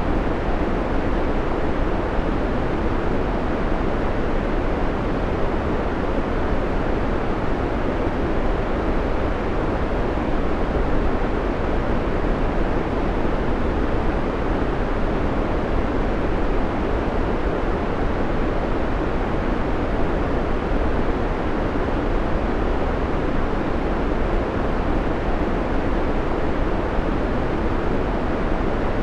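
Steady, unchanging white noise: an even, deep hiss with no changes or breaks.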